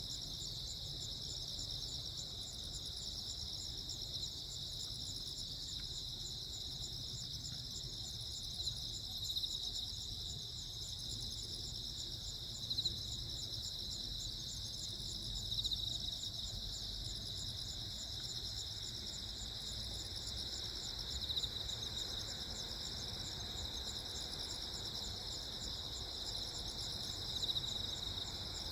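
Crickets chirping in a steady chorus, several calling at once at different pitches, with their pulsed trills running on without a break.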